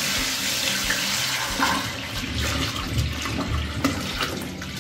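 Water pouring into a fermentation tank over chopped apples and raisins, a steady rushing splash as the fruit mash is topped up with water; the flow thins out in the second half.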